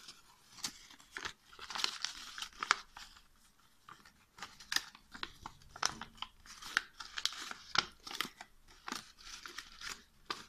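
Folded paper crinkling and crackling as hands open out and shape an origami basket: irregular sharp crackles and rustles, with a short lull about a third of the way in.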